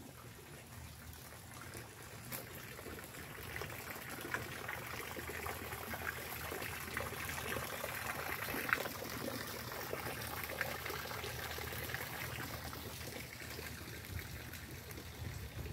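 Water trickling and splashing into a small garden pond from a rock-edged water feature. It grows louder over the first few seconds, holds steady, then eases off a little near the end.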